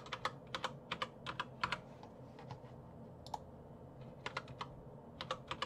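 Computer keyboard keystrokes: a quick run of about half a dozen key presses typing a short password, a single click a little past three seconds in, then a second run of key presses as the password is typed again to confirm it.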